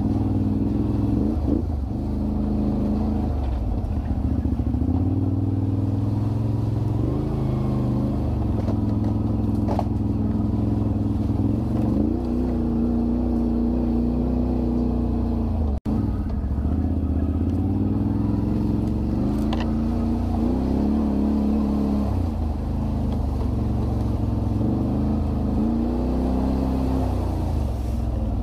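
Quad bike (ATV) engine running and revving up and down again and again, as when riding a rough trail, with a momentary cut-out partway through.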